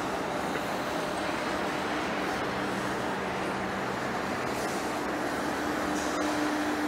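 Large heavy-duty lathe running: a steady mechanical hum and noise from the headstock and drive, with a faint steady whine coming in about halfway through.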